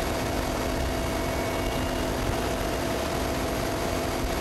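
Mil Mi military transport helicopter in flight, heard from inside the cabin at an open side door: a steady drone of rotor and turbine noise with a few constant whining tones.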